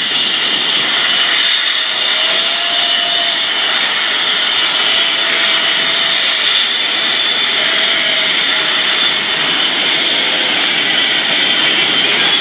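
Twin F404 turbofan engines of Blue Angels F/A-18 Hornets running at taxi power as the jets roll past one after another: a loud, steady high-pitched whine over a rush of jet noise.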